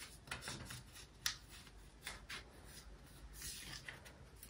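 Faint rustling and scraping of paper inserts and cards being handled out of a phone box, with one sharper click about a second in.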